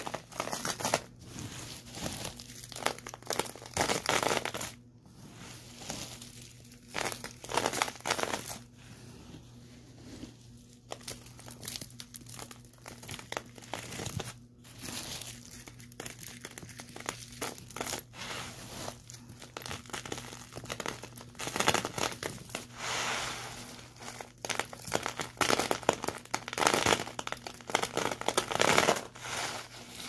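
Dry grit and debris crunching and crackling in irregular, close-up bursts that swell and fade, over a faint steady low hum.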